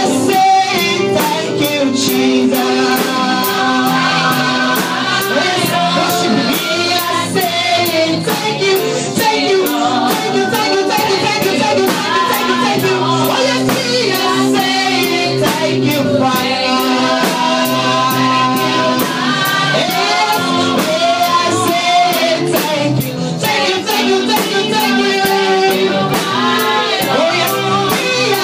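Gospel praise music: singing over guitar and a drum kit, with a steady beat.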